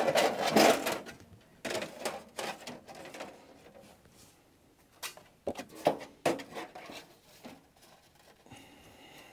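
Thin plastic insulating sheets being handled and set in place inside a metal battery box: irregular scrapes, rustles and light knocks as they slide against the metal, loudest in the first second, with a sharp tap about five and a half seconds in.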